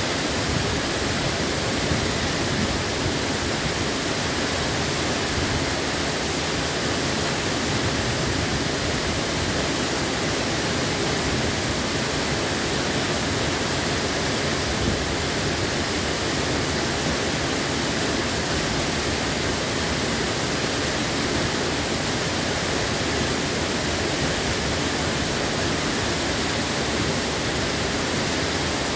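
Waterfall plunging down a rock face into a plunge pool: a loud, steady, unbroken rush of falling water.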